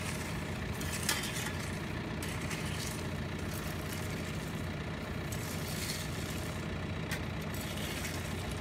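A vehicle engine idling steadily, with occasional scrapes and clinks of a rake and shovels working loose gravel.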